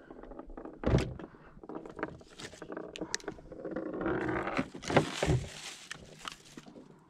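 Knocks and thumps on a small boat's deck as fishing gear is handled, with a loud thump about a second in and two more around five seconds. Between them, a plastic bag of bait rustles and crinkles.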